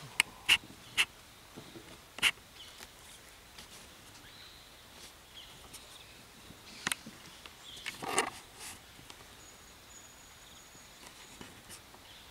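Dholes at a sambar deer carcass: scattered short, sharp squeaks and clicks, several in the first couple of seconds and a louder pair about seven and eight seconds in, over a quiet forest background.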